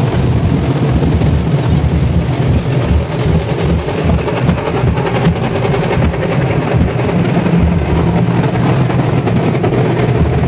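Loud, dense drumming from street procession drummers, with a crowd around them.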